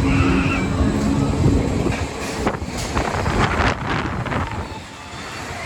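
PWS Super Trooper fairground ride running, heard on board: a dense mechanical rumble and rattle, with a cluster of sharp clacks about two to four seconds in and wind on the microphone.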